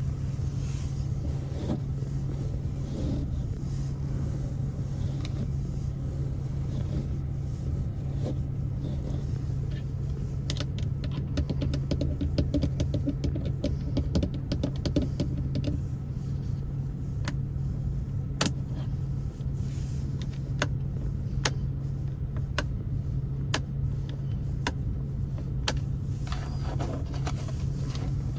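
Fingertip tapping on a Ford Focus's interior trim over a steady low hum. The taps come in quick clusters, then slow to single taps about a second apart.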